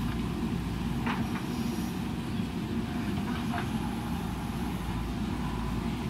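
JCB 3DX backhoe loader's diesel engine running steadily as the backhoe dumps soil and swings back to dig, with a couple of faint knocks about a second in and around three and a half seconds.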